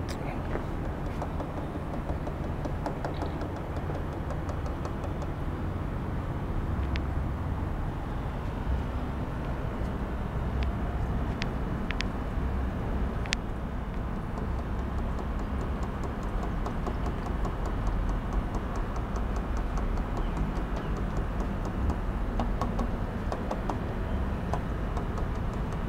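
Steady low rumble and hiss of aquarium aeration running in fish tanks, air bubbling up from air stones. A few sharp, faint clicks come in the middle.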